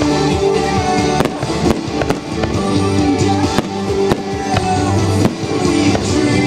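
Music plays over a fireworks display, with several sharp firework bangs going off through it.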